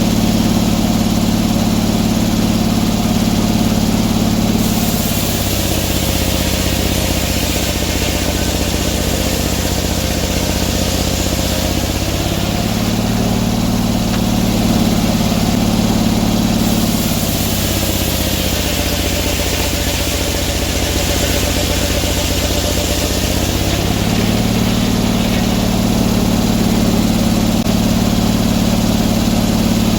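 Gas engine of a portable sawmill running steadily while it saws a log, its note dropping to a lower speed about 5 seconds in and again about 17 seconds in, and coming back up about 12 and 24 seconds in.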